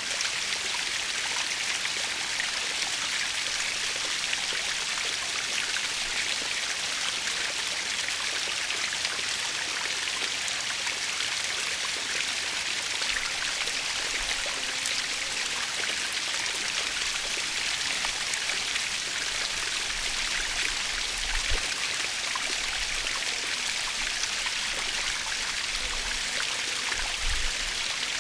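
Natural waterfall running steadily: an even hiss of falling and splashing water, with a few faint low rumbles near the end.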